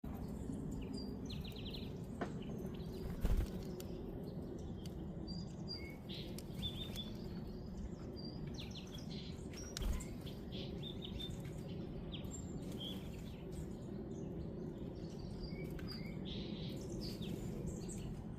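Small birds chirping with many short, high notes over a steady low rumble, with two louder thumps, about three and ten seconds in.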